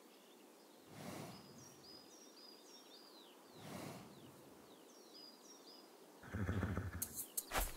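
Forest ambience: small birds chirping in short, falling calls over a soft background, with faint breathy swells every few seconds. About six seconds in comes a short, louder low-pitched sound, followed by a quick run of sharp clicks.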